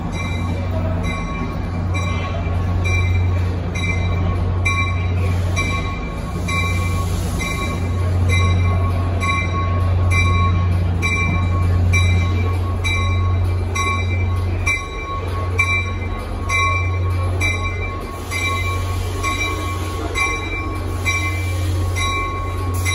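NJ Transit commuter train arriving slowly cab-car first, its bell ringing about twice a second over a steady low hum of train equipment.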